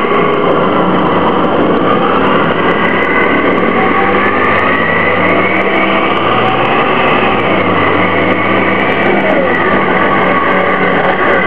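Orion VII bus's CNG Detroit Diesel Series 50G engine and ZF Ecomat-2 automatic transmission running, a steady drone with whining tones that slowly rise and fall in pitch.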